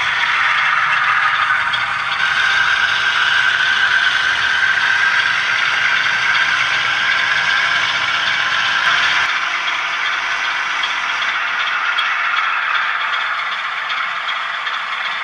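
A model railway train of 100-ton oil tank wagons rattling along the track. A low rumble under the rattle drops away about nine seconds in.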